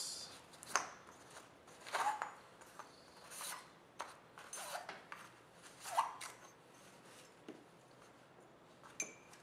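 Rustling and light scraping as hands pull paintball barrel bore inserts out of the slots of a fabric carrying pouch, in short irregular bursts about every second or so.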